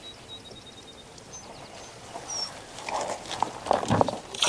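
A hooked fish thrashing and splashing at the surface beside a kayak as it is landed, starting about three seconds in with a run of sharp splashes. Before that, faint bird chirps over light water lapping.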